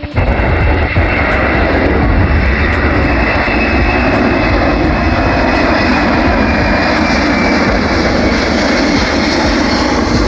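Aircraft engines running at a steady, loud drone with a faint high whine on top, unbroken throughout.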